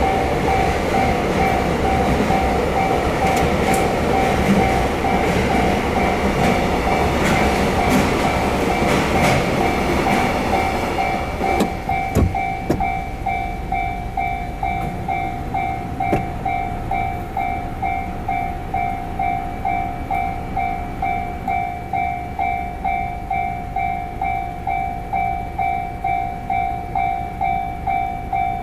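Japanese railway level-crossing alarm ringing in a steady, even rhythm while a train rumbles and clatters over the crossing. The train noise stops about 12 seconds in, leaving the crossing alarm ringing on its own.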